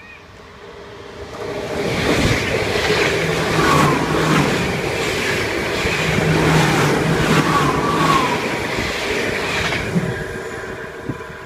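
NS ICMm electric intercity train passing at close range: the rumble of wheels on rail builds over a couple of seconds, stays loud for about eight seconds with two short wheel squeals, then fades away.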